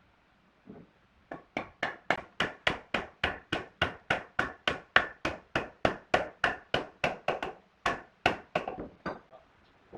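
A hammer striking wood in a rapid, steady run of about four blows a second, a couple of dozen in all, then a brief pause and four more spaced blows.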